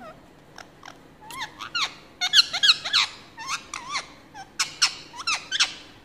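Indian ringneck parrot giving a rapid string of short, high squeaky chirps, loudest about two to three seconds in.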